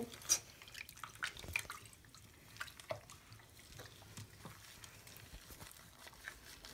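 Small, scattered water splashes and drips as hands wash a small furry pet in a shallow sink of water.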